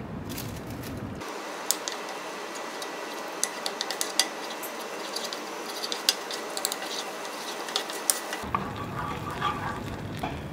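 A wooden spatula stirring and scraping thick cheese sauce in a nonstick pan, with many sharp clicks and taps against the pan over a steady hiss. Most of the clicks fall between about one and eight seconds in.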